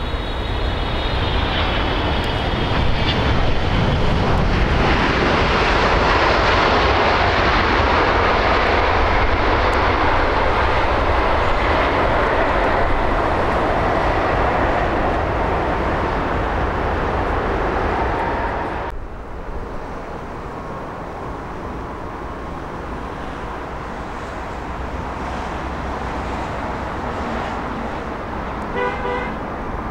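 Boeing 777 jet engines (GE90 turbofans) loud through the landing rollout: a fading high whine just after touchdown, then a sustained heavy roar for about fifteen seconds. The noise cuts off abruptly, and a quieter, steady jet noise from another airliner on final approach follows.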